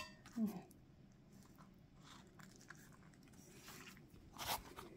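Faint handling of food: filling spooned into a soft corn-masa gordita and the filled gorditas set down on a cloth-covered table, with a short low sound about half a second in and a brief rustling scrape near the end.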